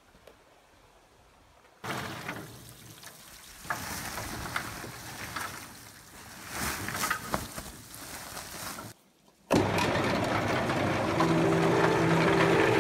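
Green walnuts in their hulls poured from a sack into the drum of a walnut hulling machine, knocking and rattling in uneven bursts. After a short pause, a steady, louder rushing noise starts suddenly as the machine runs.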